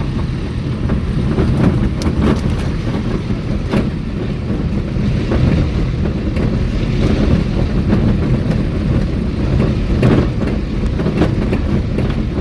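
A car on the move, heard from inside: a steady low rumble of engine and road noise, with a few short knocks scattered through it.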